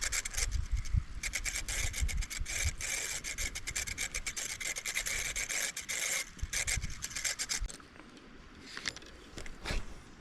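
Fishing reel being cranked on a retrieve, giving a rapid rasping grind that stops about seven and a half seconds in, followed by a few light clicks. The sound is an unexplained noise the angler says he doesn't know the cause of.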